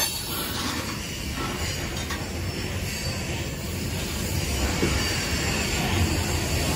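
Train cars rolling past on the rails: a steady rumble of wheels on track.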